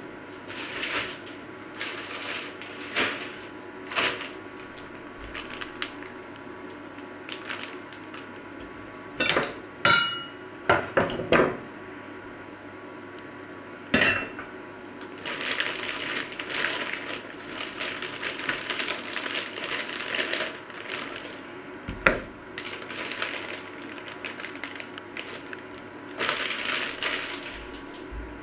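Kitchen handling noises: a plate clinks and rings briefly about ten seconds in, then a plastic bag rustles in bursts as mixed vegetables are tipped out onto a wooden cutting board, with a sharp knock partway through.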